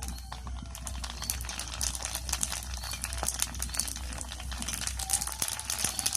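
Fuchka shells frying in hot oil, with dense crackling and sizzling that starts just after the opening and grows busier.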